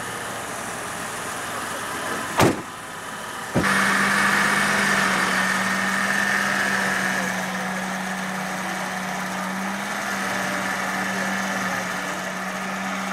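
A car door slams about two seconds in, followed by a second knock; then a Lincoln Town Car stretch limousine's engine idles steadily as the car starts to roll away near the end.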